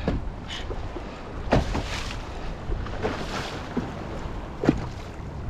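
Wind buffeting the microphone on an open boat, a steady low rumble, with a few sharp knocks and clunks, the loudest near the end.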